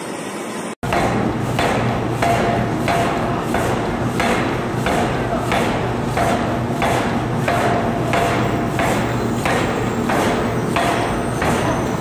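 Power forging hammer striking red-hot steel in a steady rhythm, about one and a half blows a second, over a continuous machine hum. Before that, just under a second of steady lathe machining noise.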